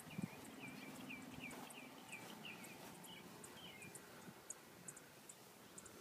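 Faint birdsong: a quick series of short chirps for the first three seconds, with thin high ticks repeating throughout.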